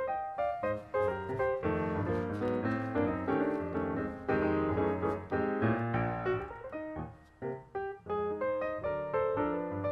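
Background piano music: a quick melody of separate notes over lower chords.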